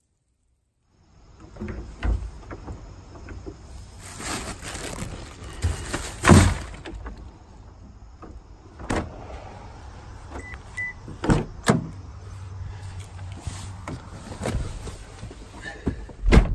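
A string of knocks, clunks and rustles from objects being handled, over a low steady hum. A loud thump comes about six seconds in and another near the end.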